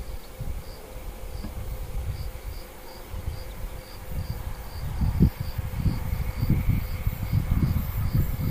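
Crickets chirping, a high chirp repeated evenly about two to three times a second, over a low uneven rumble that grows louder in the second half.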